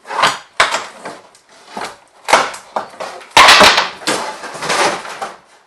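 A board being pried and broken off a wall: wood cracking and crunching in a series of uneven bursts, with the loudest crash about three and a half seconds in.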